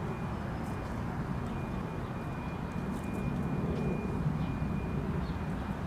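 Steady low rumble of outdoor urban background noise, like distant traffic, with a faint thin high whine and a few faint clicks.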